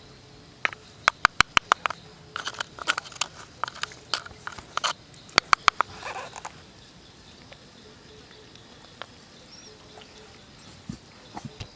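Close-up eating sounds: a person biting and chewing barbecued pangas fish, with a quick run of sharp crunches in the first half, then only a few faint clicks.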